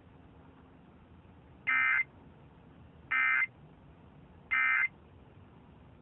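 Emergency Alert System end-of-message data tones received over AM radio: three short, harsh bursts of SAME digital code, about a second and a half apart, over faint radio hiss. The three bursts signal that the alert is over.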